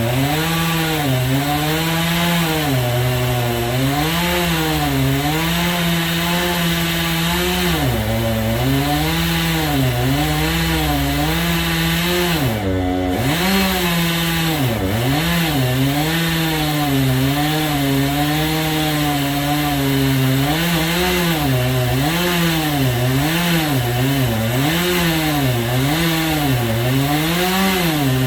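Chainsaw running in a homemade chainsaw mill, ripping lengthwise through a walnut log. The engine pitch keeps dipping and recovering in the cut, with a deeper dip about twelve seconds in.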